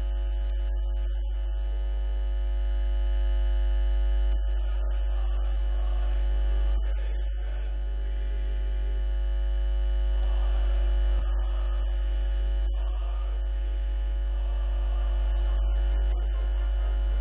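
Steady electrical mains hum, a strong low drone with a stack of steady higher tones above it, that does not change or stop.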